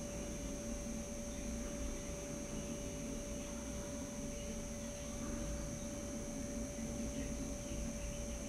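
Steady electrical hum with a constant pitched tone over a low rumble, the recording equipment's own noise.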